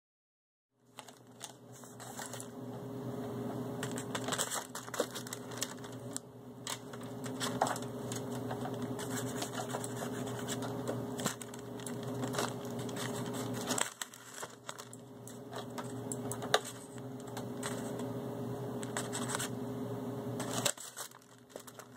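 Paper envelope rustling and crinkling in irregular bursts of scratchy clicks as a kitten claws and bats at it, over a steady low hum.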